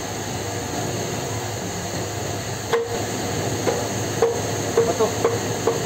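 A run of sharp metallic knocks, each with a short ringing note, as a metal printing-press part is handled and tapped during cleaning. The knocks start about halfway through and come faster near the end, over the steady hum of the pressroom's machinery and ventilation.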